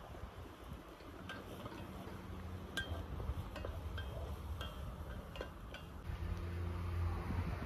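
A series of about eight light, short clinks spread over a few seconds, several ringing briefly at the same pitch, as of hard objects tapping together.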